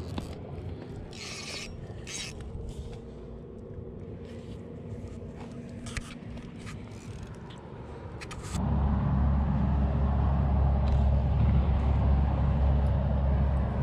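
Spinning rod and reel being handled: scattered clicks, light knocks and scrapes as the rod is set in a holder. About eight and a half seconds in, a sudden, much louder steady low rumble takes over.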